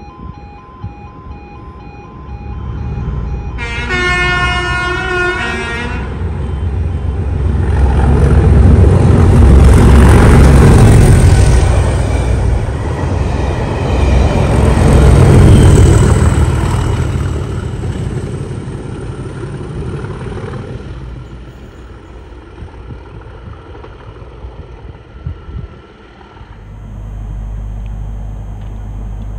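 Class 37 diesel locomotive horn sounded once for about two seconds as the train approaches. Then the two-locomotive test train passes at speed, engine and wheel noise building to a loud peak, with a second peak a few seconds later as the other Class 37 goes by, then fading away.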